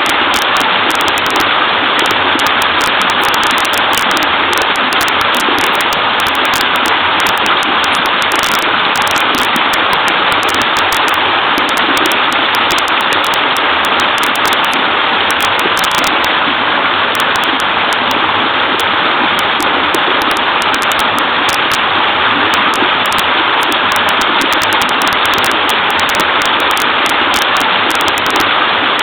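Small waterfall in a wide stream, clear water babbling and splashing in a steady, unbroken rush.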